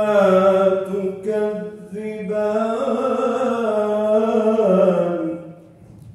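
A male qari's voice reciting the Quran in melodic tajweed style: long, ornamented phrases from a single voice, with the last phrase drawn out and ending about five and a half seconds in, its echo fading after.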